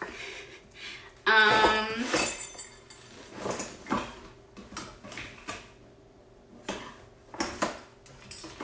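Metal kitchen utensils clattering and clinking in irregular knocks as someone rummages through them for a can opener, with a short, loud pitched squeak about a second and a half in.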